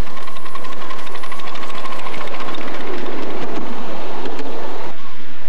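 Miniature live-steam locomotive pulling away, its exhaust beating in rapid, even chuffs over a hiss of steam.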